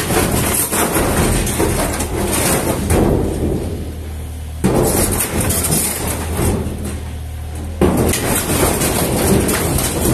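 Yanmar SV18 mini excavator at work: its diesel engine running steadily under load, with rough clattering over it that jumps abruptly louder twice, about four and a half and eight seconds in.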